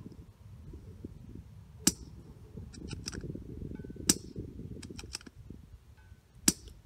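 Three shots from a Tikka T1x .22LR bolt-action rifle, about two seconds apart, each one short and sharp. Between the shots come quieter clicks of the bolt being worked.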